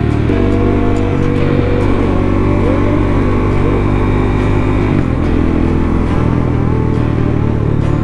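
Suzuki DRZ400's single-cylinder four-stroke engine pulling at a steady cruise, its pitch stepping a few times as the throttle or gear changes, with wind rush over it.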